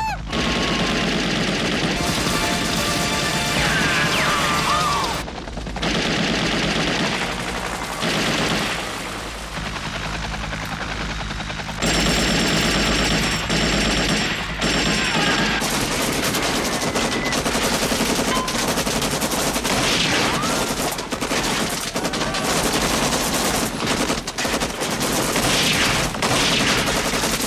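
Heavy automatic machine-gun fire in long, dense bursts, with men shouting over it in places.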